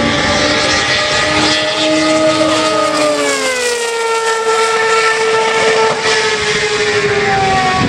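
Matra 670's 3-litre V12 racing engine at speed as the car passes close by, a high, multi-toned howl whose pitch slides down about three to four seconds in as it goes past and pulls away.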